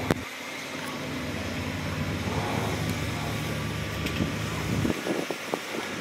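Heavy diesel engine of earthmoving machinery running steadily at a low hum. About a second before the end the engine tone drops away and a crackling noise takes over.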